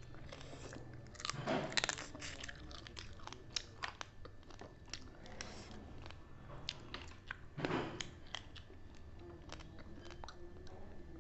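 Close-up eating sounds from a meal of fried chicken with rice and dal: chewing and crunching with many small clicks. There are two louder crunches, about a second and a half in and near eight seconds.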